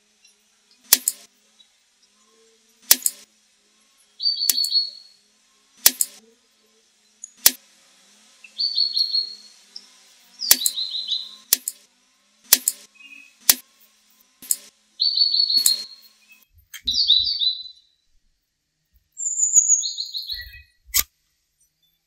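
Knife cutting mozzarella on a wooden board, a sharp tap each time the blade hits the wood, about every one to two seconds. A small bird sings short, high chirping phrases between the taps.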